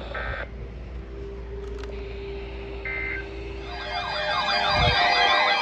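Two brief bursts of two-tone electronic data warble, the EAS SAME end-of-message code that closes a NOAA Weather Radio warning, the first right at the start and the second about three seconds in. Then, from nearly four seconds in, a louder siren-like sound warbles up and down.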